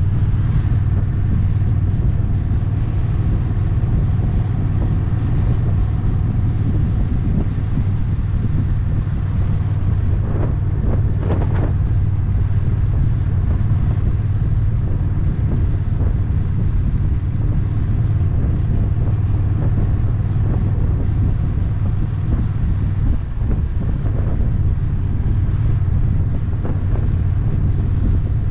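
Honda Rebel 1100 DCT's parallel-twin engine running steadily while cruising at a constant road speed, with wind noise on the microphone.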